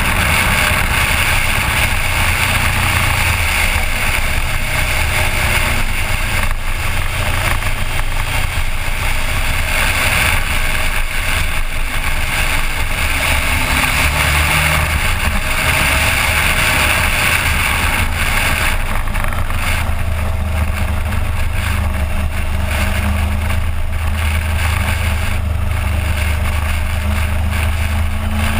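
Suzuki GSX1400 inline-four motorcycle engine running under way, its pitch drifting up and down a little, under heavy wind noise on the helmet- or bike-mounted action camera's microphone.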